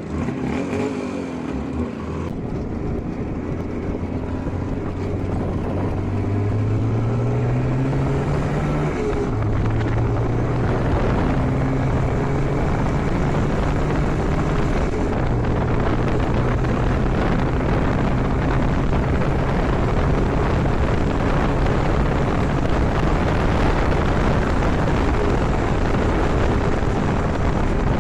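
IZh Jupiter 5 motorcycle's two-stroke twin engine pulling away, rising in pitch through the gears with a drop at each shift, about nine and fifteen seconds in, then running steadily at speed. The owner says the engine knocks badly enough to need a teardown and inspection of its parts.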